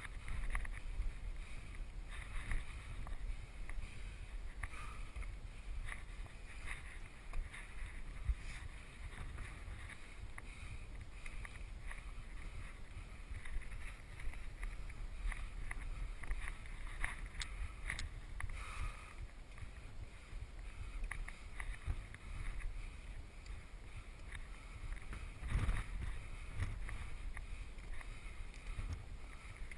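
Low wind rumble on the microphone, with the climber's footsteps and scuffs on rock and loose stones, and a louder knock about twenty-five seconds in.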